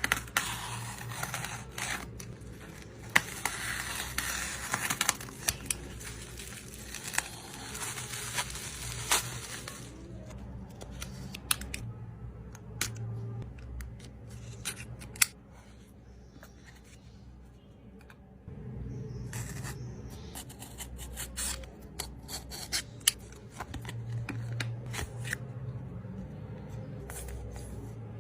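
Close-miked handling of photocard packaging: rustling, scraping, snipping and tearing of plastic and paper, with many sharp clicks and taps. It is busy for the first ten seconds or so, then quieter, with scattered clicks.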